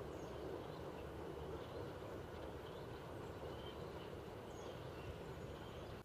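Outdoor woodland ambience: a steady low background hum with faint, distant bird chirps scattered through it.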